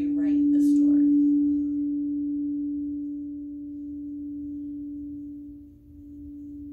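Quartz crystal singing bowl ringing with one steady, pure low hum and a faint higher overtone. The tone swells in the first second while the mallet works the rim, then rings on and slowly fades after the mallet is lifted away.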